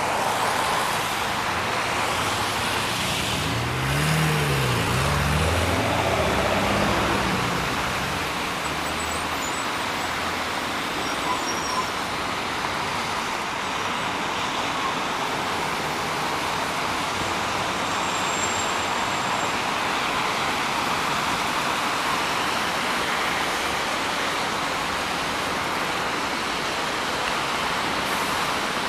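City road traffic on a wet road: a steady hiss of tyres on wet asphalt. A few seconds in, a passing vehicle's engine rises and falls in pitch.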